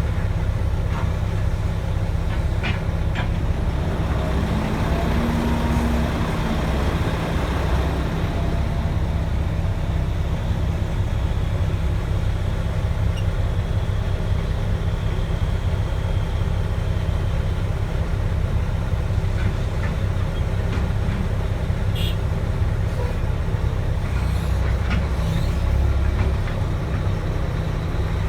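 Mack E7 inline-six turbo diesel in a loaded dump truck, running steadily under load with a deep drone. A faint high whistle sits above the engine noise for several seconds in the middle.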